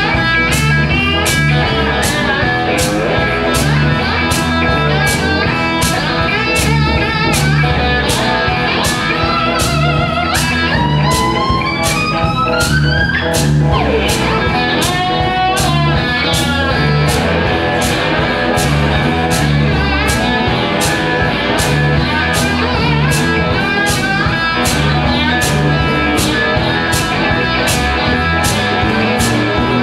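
A blues band plays an instrumental passage on two electric cigar-box-style box guitars over a steady drum beat. About a third of the way in, a lead line slides up in a long rising run, followed by wavering bent notes.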